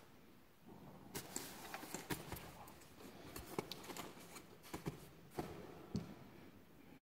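Faint handling noise of a hiking backpack with trekking poles strapped to it being gripped and shifted: rustling with a scatter of light, irregular clicks and knocks, starting about a second in.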